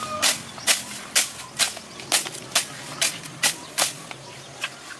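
Repeated sharp knocks or strikes, about two a second, fading out after about four seconds.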